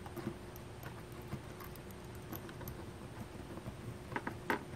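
Faint clicks and light scraping from a small precision screwdriver turning a tiny screw into a 3D-printed RC car's front suspension, with a quick cluster of sharper clicks about four seconds in.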